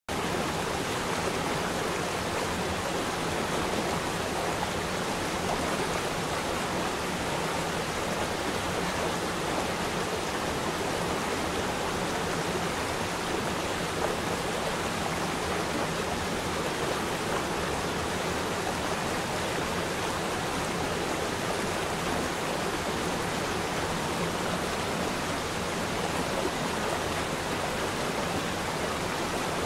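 Steady, unbroken rushing noise, water-like in character, spread evenly from low to high with no changes or breaks.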